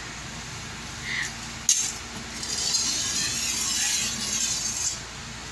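A sharp metallic clink of a bolo blade, then a long scraping hiss as the machete blade is drawn across the sharpener.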